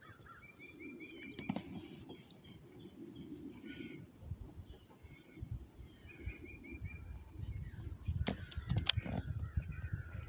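River ambience: a steady high insect drone with birds chirping in short repeated phrases, over a low rumble of water and movement. A few sharp clicks and knocks near the end come from the baitcasting rod and reel being handled.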